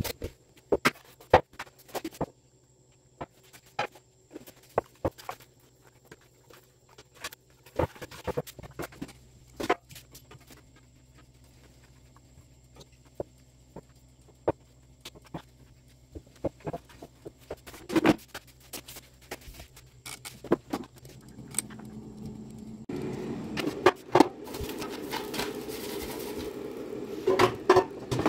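Scattered light clicks and taps of raw sweet potato slices being handled and laid into an air fryer's nonstick basket. A steady low hum comes in about three-quarters of the way through.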